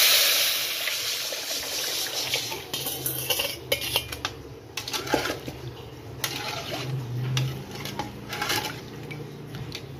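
Rasam liquid poured into hot oil tempering in a metal pan, hissing loudly as it hits the oil and fading into splashing as the pour continues. A metal ladle then stirs it, clinking against the pan.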